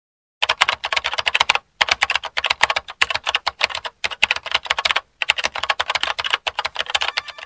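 Typing sound effect: rapid key clicks in four runs broken by brief pauses, keeping pace with text being typed out letter by letter.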